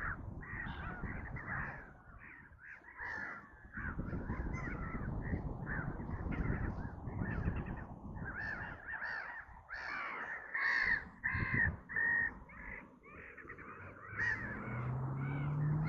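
Gulls calling over and over with harsh, crow-like cries, several birds overlapping, over a steady low rumble.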